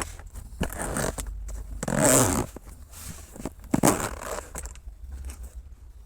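A zipper pulled in three short noisy strokes, the middle one the loudest, over a steady low rumble.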